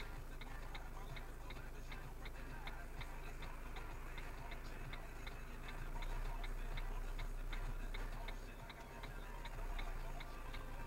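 A car's turn-signal or hazard relay clicking steadily, about two and a half clicks a second, over a low hum inside the stationary car.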